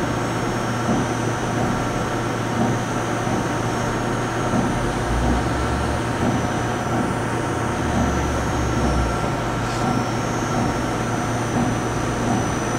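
Okuma & Howa Millac 561VA CNC vertical machining center running through its program with no tool in the spindle: a steady mechanical hum, with a deeper rumble joining twice, about five and eight seconds in.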